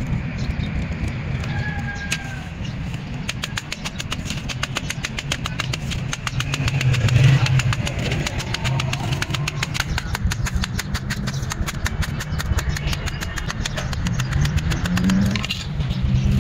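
A small engine running with a steady low drone and a fast, even train of clicks, rising briefly near the end.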